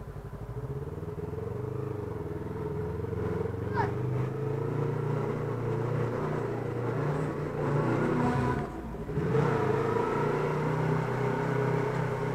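Motorcycle engine running at low speed, its pitch shifting a little with the throttle; it drops off briefly about nine seconds in and then picks up again.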